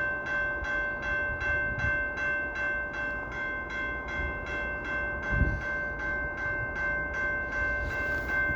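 Railway crossing bell ringing rapidly, about two to three strikes a second, each strike ringing on, over the low rumble of a train on the tracks. A single low thump comes about five seconds in.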